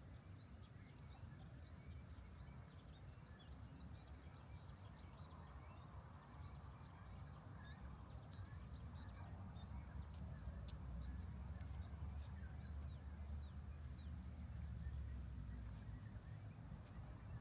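Faint, scattered chirps of small birds over a steady low rumble that swells slightly in the second half, with one sharp click about ten and a half seconds in.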